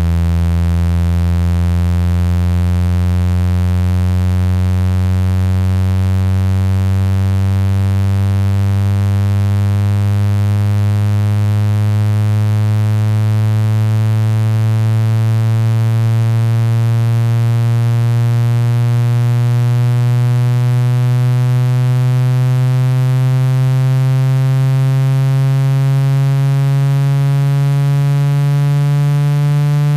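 Synthetic low buzzing tone, full of overtones, gliding slowly and steadily upward in pitch. It is a speaker-cleaner frequency tone played to shake trapped water and dust out of a phone speaker.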